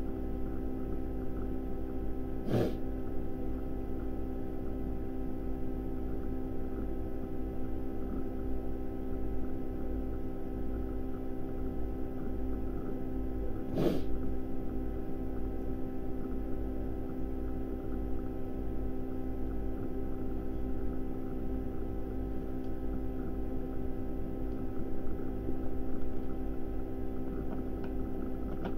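Steady electrical hum made of several unchanging tones over a low rumble, with two brief clicks, one about two and a half seconds in and one about fourteen seconds in.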